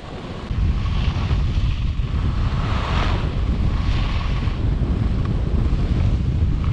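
Wind buffeting a pole-mounted action camera's microphone during a ski descent, rising sharply about half a second in. Over it, the hiss of skis on groomed snow swells about once a second as he turns.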